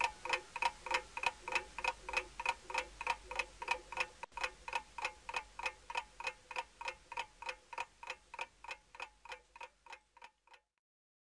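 Mechanical clock movement ticking evenly, about four ticks a second, fading out over the last few seconds and stopping shortly before the end.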